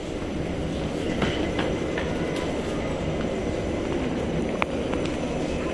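Prague Metro 81-71M train running, a steady low rumble with a few faint sharp clicks.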